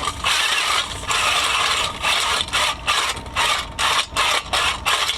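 Power ice auger with dull blades grinding against the ice in uneven, chattering bursts: the blades skip and jump instead of biting cleanly. The bursts get shorter and quicker in the second half.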